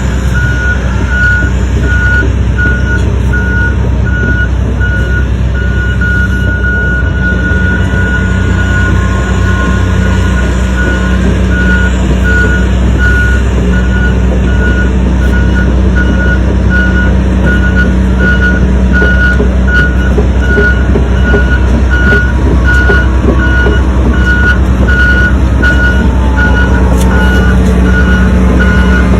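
Komatsu excavator's diesel engine running steadily, with its travel alarm giving a high beep that repeats evenly.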